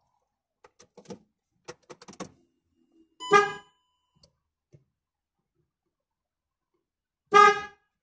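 Car horn of a VW Golf Mk5, sounded from the horn pad of a newly fitted Mk7 steering wheel, giving two short beeps about four seconds apart. The beeps show that the new wheel's horn wiring works. A few faint clicks come before the first beep.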